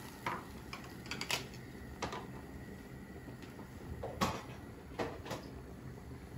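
Silicone spatula stirring a tomato sauce in a nonstick pan, giving irregular light clicks and taps against the pan, about half a dozen.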